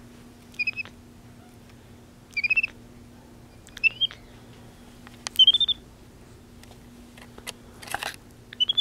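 Capuchin monkey chirping: short high-pitched peeps in five little bursts, some rising in pitch. A brief rustle comes near the end, over a faint steady hum.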